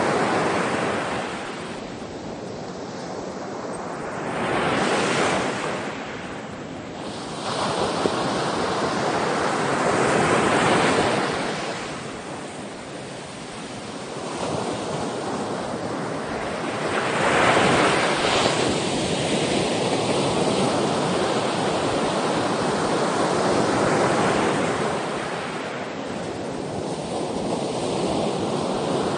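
Ocean waves breaking and washing on the shore, the surf swelling and ebbing every few seconds, with some wind noise on the microphone.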